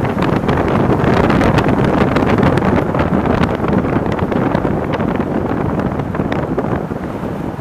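Wind buffeting the microphone of a camera held out of a moving van's window, a loud steady rush with frequent gusty crackles, over the vehicle's road noise.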